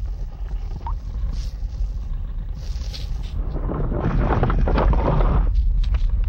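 Low, steady wind-like rumble across a barren stone landscape, with a louder rushing gust that swells about halfway through and stops suddenly about a second before the end. A few light clicks follow as the sand figure steps across the stones.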